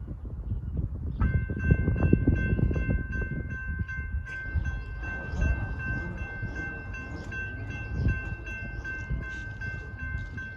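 Railroad grade-crossing signal bell starting to ring about a second in, with quick even strokes about three a second. A second crossing bell joins about four seconds in, over a low rumble.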